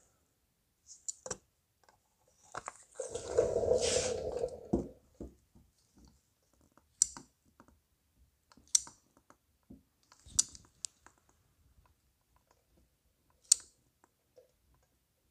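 Panel sealant being squeezed into a body seam: a rough noise for about two seconds, then four sharp clicks a couple of seconds apart.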